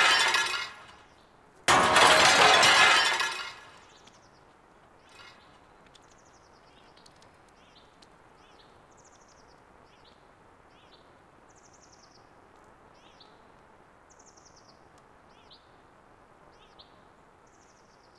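Mirror glass shattering: the end of one crash, then a second crash about two seconds in that rings on for about two seconds as the pieces fall. After that, small birds chirping in short, quick calls over a faint hiss.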